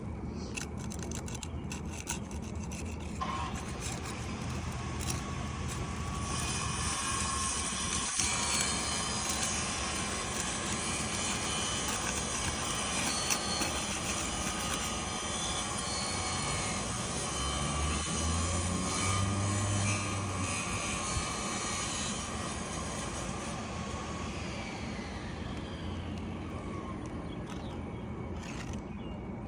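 Engine noise from a motor vehicle or machine. It builds about three seconds in, holds steady through the middle with some low humming and shifts in pitch, and fades away near the end.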